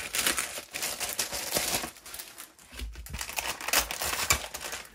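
Crinkly packaging being handled and crumpled in the hands as a Lego Ninjago surprise bag is unpacked: an irregular rustling and crackling, with a brief lull about halfway through.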